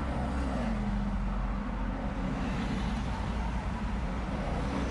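Road noise inside a moving vehicle: a steady low rumble of engine and tyres with a faint hum.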